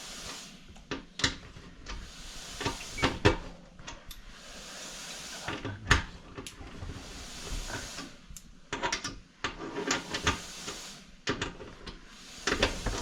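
Scattered clicks, knocks and rattles of hardware and tools as a TV wall mount is screwed to the wall, with a stretch of hissing noise a few seconds in.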